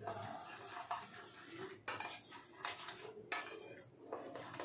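A spoon clinking against a metal mixing bowl: a handful of sharp clinks about a second apart, with light scraping in between.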